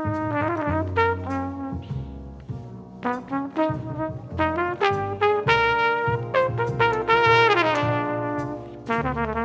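Big jazz band playing, with its trombone and saxophone sections and flugelhorn over drums and bass in short punchy figures. A run of notes falls in pitch about two-thirds of the way through.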